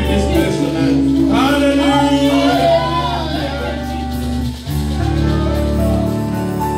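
Live gospel praise-and-worship music: voices singing over held instrumental chords, with a brief dip about four and a half seconds in.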